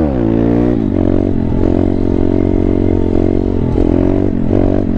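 2019 Thumpstar 140cc pit bike's single-cylinder four-stroke engine under way. The revs fall over the first second, then hold steady with brief dips as the throttle is worked to keep a wheelie up.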